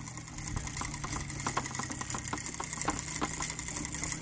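A steady low mechanical hum, like a small engine running, with scattered irregular clicks and ticks over it.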